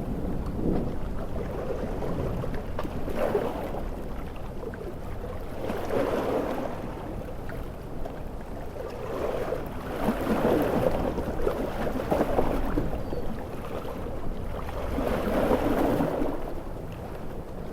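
Ocean surf in a storm: waves breaking and washing in, swelling and easing every two to three seconds, over a steady hiss of heavy rain.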